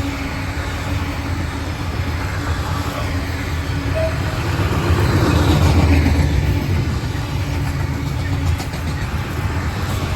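A train running past with a steady low engine hum, growing louder about five to six seconds in and then easing.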